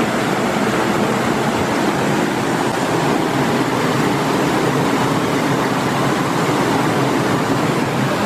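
Steady rushing of water from a small waterfall spilling down a rocky stream bed.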